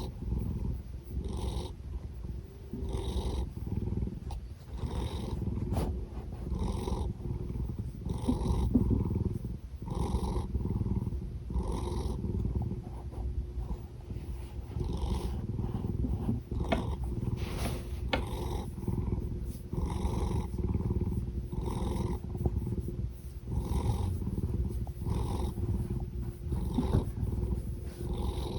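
A big domestic cat purring in a steady low rumble that swells with each slow breath, about every two seconds, with a breathy snore on the breaths.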